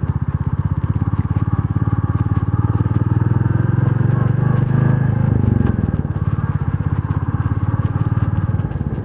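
An engine running steadily with a fast, even throb, easing slightly about halfway through.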